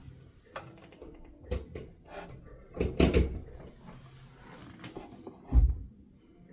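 Handling noise from a small plastic Spartus 1166-C1 travel alarm clock: scattered clicks and knocks, the loudest cluster about three seconds in, then a dull thump about five and a half seconds in as it is set down or shut.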